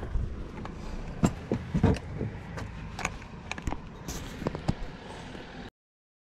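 Irregular clicks and knocks of gear being handled close to a chest-mounted camera, over a steady low rumble. The sound cuts off about a second before the end.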